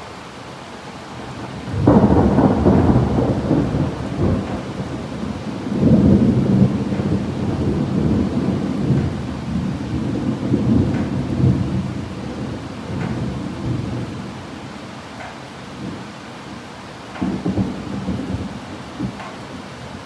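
Thunder rolling over steady rain: a sudden loud rumble about two seconds in, swelling again around six seconds and slowly dying away, with a few smaller rumbles near the end.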